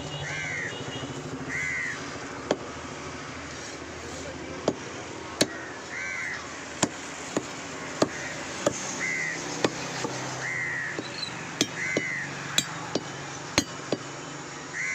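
Heavy curved butcher's cleaver chopping goat meat on a wooden log block: irregular sharp knocks about once a second. Crows caw now and then in the background.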